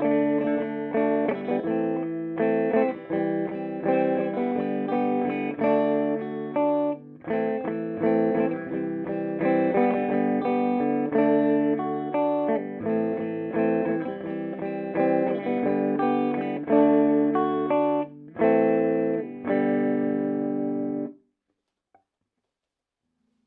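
Electric guitar played through the clean channel of a Peavey Bandit 112 combo amp, with its 12-inch speaker: a run of chords and single notes with two brief pauses. The playing stops suddenly a couple of seconds before the end, leaving silence.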